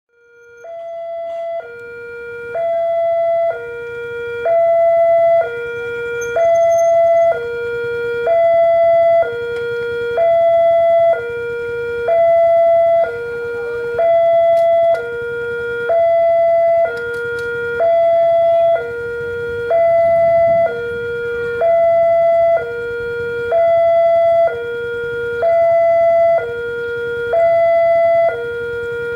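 Railway level-crossing warning siren sounding a two-tone hi-lo alarm, alternating between a higher and a lower tone about once a second. It fades in over the first few seconds and then holds steady.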